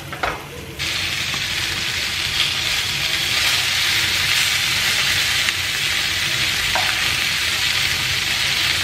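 Fish fillets frying in hot oil in a pan: a steady, loud sizzle that starts suddenly about a second in, after a couple of light clicks.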